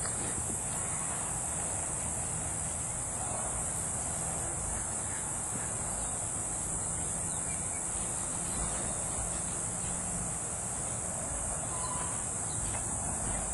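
Steady, high-pitched insect chorus that never lets up, over a low rumble.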